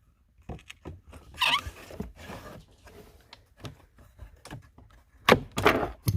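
A new cabin air filter being pushed into its plastic housing: the frame scrapes and rustles with a squeak about a second and a half in, then gives a louder scrape near the end as it seats, with small clicks in between.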